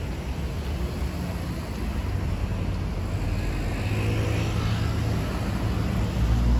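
Road traffic with a low wind rumble on the microphone; a vehicle's engine grows louder about halfway through.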